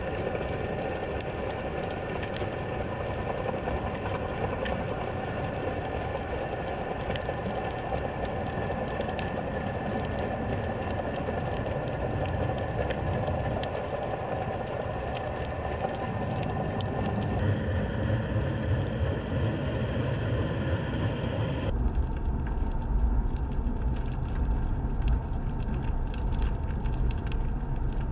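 Underwater sound recorded by a GoPro in its housing: a steady drone of several steady tones over a low rumble, peppered throughout with small crackling clicks. About two-thirds of the way through the sound turns duller and deeper, and the rumble grows louder.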